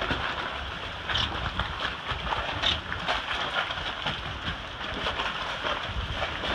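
Gusty storm wind buffeting the microphone, over choppy water splashing around the dock pilings.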